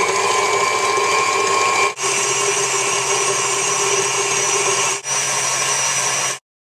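Electric mixer running at speed, whipping warmed egg whites and sugar into meringue for Swiss meringue buttercream. A steady whir that drops out briefly twice and stops abruptly near the end.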